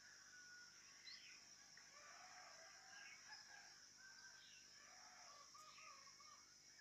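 Faint birds calling: many short scattered chirps and whistles over a steady high hiss.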